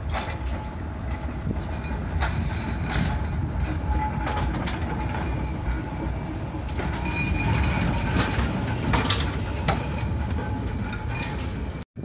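1903 Sydney tramway freight car 24s rolling slowly along the track: a steady low rumble from its wheels and running gear, with frequent clicks and knocks over the rail. The sound breaks off briefly near the end.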